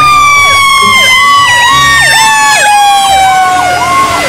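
Fire engine sirens sounding loudly as the truck responds: one long tone slowly falls in pitch while a second siren whoops up and down in quick repeated dips, about two to three times a second.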